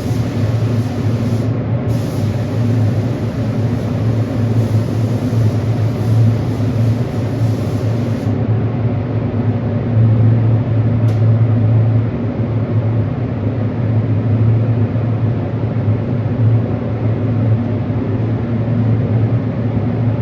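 Paint spray gun hissing with the trigger held. It runs in one long pass lasting about eight seconds, with a short break near two seconds in, and a brief burst around eleven seconds. Under it all is a steady low machine hum.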